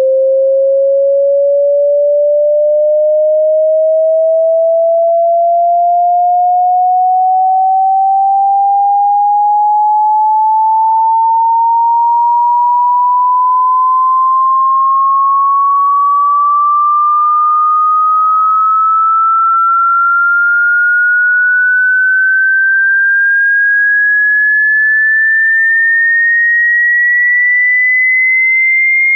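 A pure sine-wave test tone gliding slowly and evenly upward in pitch, from a mid-low note to a fairly high one, at a constant loudness. It is a frequency sweep of the kind used as a hearing test.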